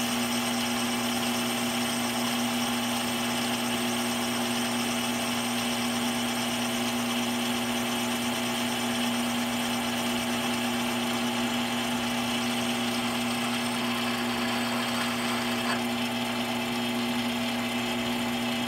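Mini lathe running steadily at constant speed during a reaming pass, its motor and spindle drive giving an even hum with a whine of steady higher tones. A faint tick sounds once near the end.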